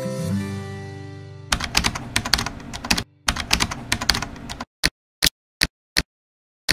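Music dies away over the first second and a half, then a fast run of keyboard typing clicks, broken once by a brief pause, gives way to a few single keystrokes about half a second apart.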